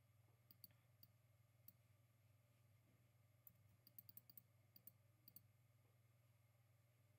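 Faint computer mouse clicks over near silence with a low steady hum: a few scattered clicks in the first two seconds, then a quick run of about ten clicks in the middle.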